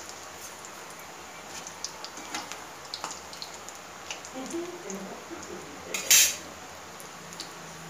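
Spinach pakoras deep-frying in hot oil in a steel kadai: steady sizzling with scattered small crackles, and one brief, loud sharp noise about six seconds in.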